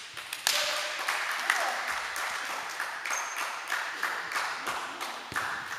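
Spectators clapping in a sports hall, a dense patter of hand claps that starts about half a second in.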